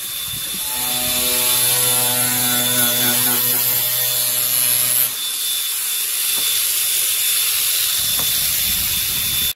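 DeWalt angle grinder running and cutting into a plastic vehicle bumper, with a steady high whine. The cutting note changes about five seconds in.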